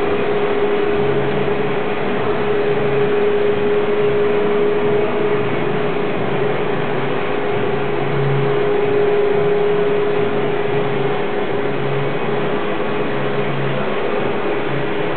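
Small-room ventilation fan running: a steady whir with a constant hum and an uneven low throb underneath.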